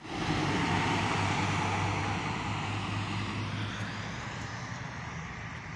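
Diesel city bus driving past and moving away. A steady engine drone is mixed with tyre and road rush, loud at first and slowly fading.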